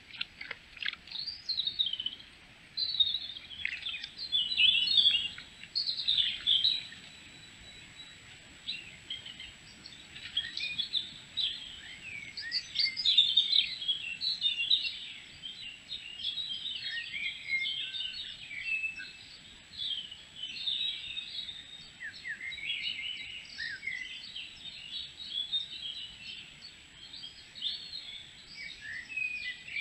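Several songbirds singing at once in woodland, a busy chorus of short chirps, trills and whistles.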